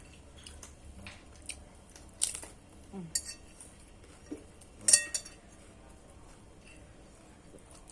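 Tableware clinking during a meal: a handful of sharp taps and clinks of cutlery against a plate or glass, the loudest and most ringing one about five seconds in.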